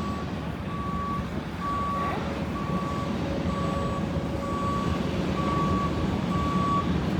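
Vehicle backup alarm beeping steadily at one pitch, about one beep a second, over a low engine and traffic rumble.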